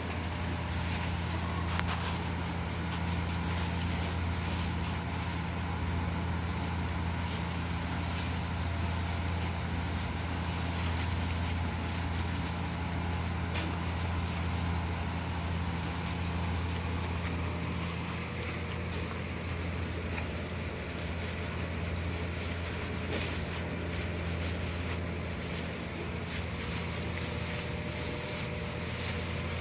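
Steady low machine hum, like a fan or motor running, with scattered faint clicks over it.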